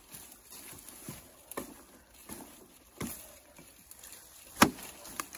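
A Lamaca bushcraft axe chopping into a small green log, a series of sharp blows at irregular intervals about a second or so apart, the hardest about four and a half seconds in.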